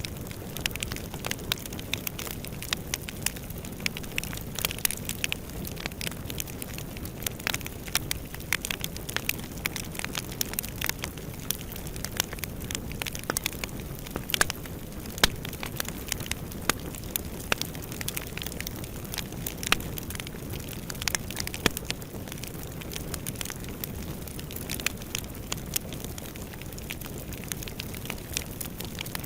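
Fire burning in a fireplace: a steady low rush of flame with frequent irregular crackles and pops, a few of them louder.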